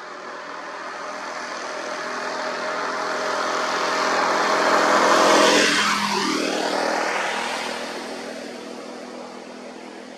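A small motorcycle approaches and passes close by, its engine growing louder to a peak about five and a half seconds in. As it goes past, its note drops, and it then fades away.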